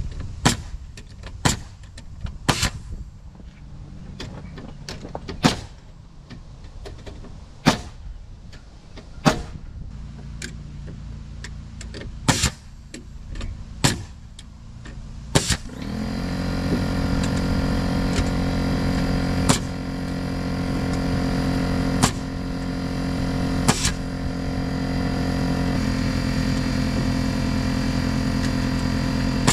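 A run of sharp knocks, one every second or two, over a low engine hum. About halfway through, a motor starts up and runs steadily and louder, with a few more knocks over it.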